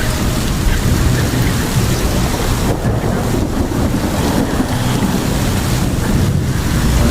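Heavy rain with wind buffeting the microphone while cycling, a loud steady rushing hiss over a constant low rumble.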